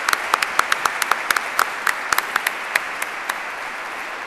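Audience applauding: many hands clapping with sharp single claps standing out, thinning and fading away near the end.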